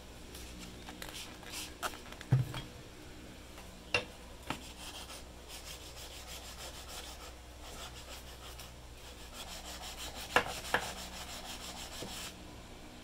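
Steel chisel blade rubbed back and forth on a whetstone, a steady scraping as the edge is sharpened, with a dull knock and a few sharp clicks as the tool is shifted on the stone.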